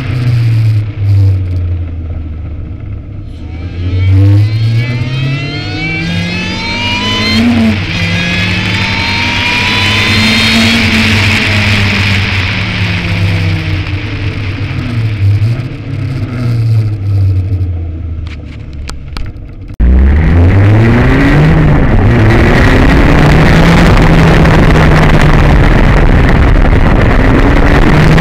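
Ariel Atom's engine revving through the gears: the pitch climbs, drops back, climbs again, then falls as the car eases off. About twenty seconds in the sound turns suddenly louder, with heavy wind noise over the engine as it pulls hard again.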